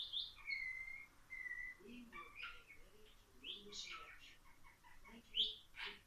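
Budgerigar chattering and warbling: a quick string of short chirps and squeaks, with two brief whistled notes about a second in and a louder sharp chirp near the end.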